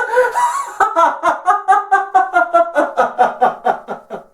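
A man laughing in laughter-yoga style: from about a second in, a fast run of short, even "ha" pulses, about six a second, on a fairly steady pitch, cut off suddenly at the end.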